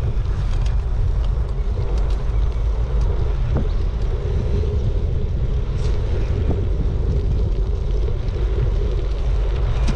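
Wind rushing over a GoPro's microphone on a moving bicycle: a steady, loud low rumble with a few faint ticks.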